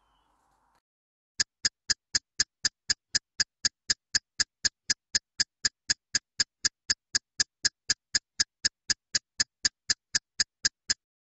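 Clock-like ticking sound effect, about four sharp ticks a second, starting about a second and a half in and stopping just before the end, marking a countdown timer.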